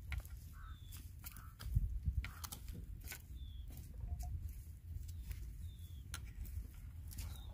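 A metal spoon clicking and tapping against a clay pot while foam is skimmed off boiling chicken broth, over a steady low rumble. A few short falling bird chirps come through several times.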